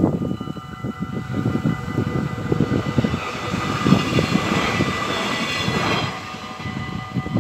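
Level crossing bells ringing steadily while a Stadler GTW diesel multiple unit passes over the crossing. Its engine and running noise swell from about two and a half seconds in and drop off sharply at about six seconds. Wind buffets the microphone with an uneven low rumble.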